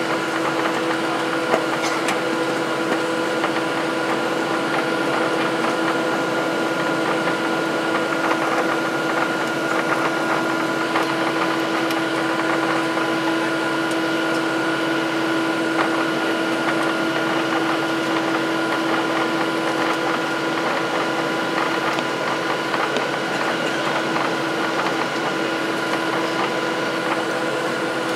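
Cabin noise of a Boeing 737-700 taxiing with its CFM56-7B turbofan engines at idle: a steady hum and hiss with several held whining tones, unchanging throughout.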